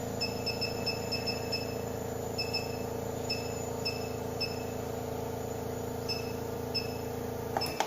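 Hydro-dermabrasion machine's vacuum pump running with a steady hum, which stops just before the end. Short high-pitched chirps come and go over it in irregular groups.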